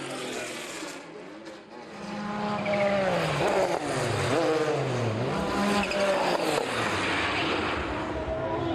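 Sports-prototype race car engines at high revs. The note drops and climbs again several times through gear changes, and it gets louder about two seconds in as the cars come closer.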